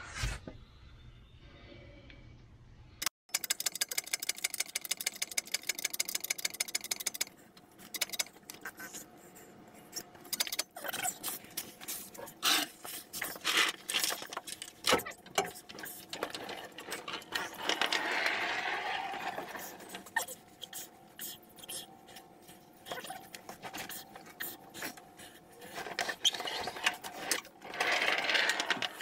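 Mechanical work on a transmission jack raising a heavy-truck transmission: a rapid, even run of clicks starting about three seconds in, then scattered metal clicks, knocks and rattles.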